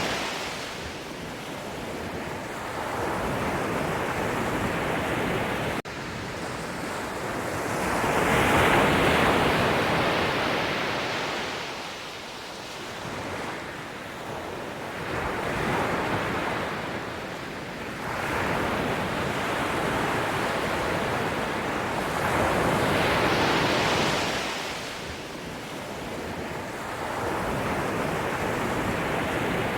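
Sea waves breaking and washing up, swelling and falling away about every seven seconds, with wind rumbling on the microphone.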